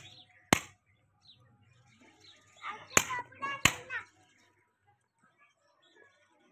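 Three sharp knocks of metal hoof-trimming tools striking a horse's hoof: one near the start, then two close together about three seconds in.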